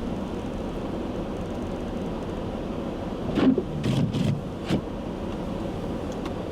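Steady road and engine noise heard inside a moving car, with a few short knocks and thumps a little past the middle.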